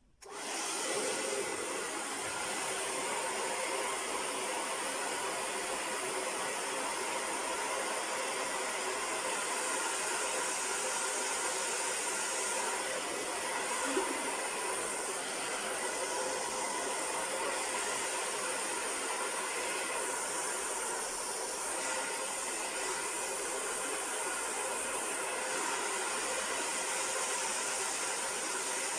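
Handheld hair dryer switched on at its cool setting and running steadily, blowing air to set freshly sprayed lace-wig glue.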